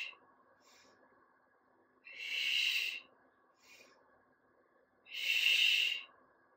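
A woman's loud, forceful exhales through the mouth, each about a second long, with short faint inhales between. These are breaths timed to the lifting effort of one-arm overhead dumbbell triceps extensions. One exhale ends right at the start, and two more come about two and five seconds in.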